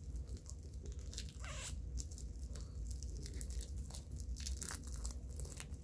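Fingers picking and scratching at plastic wrapping tightly wound on a metal lightsaber hilt, making faint scattered crinkles and small clicks as he hunts for the loose end of the wrap.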